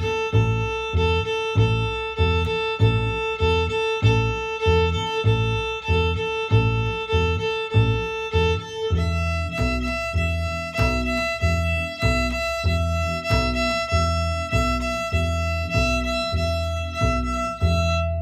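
Fiddle bowing open strings in a long, short, short rhythm, on the A string and then on the E string from about halfway through, over an upright double bass plucking a steady low pulse.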